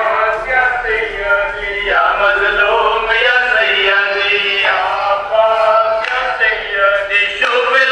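A man's voice chanting a devotional recitation in long, drawn-out melodic lines, with short breaths between phrases.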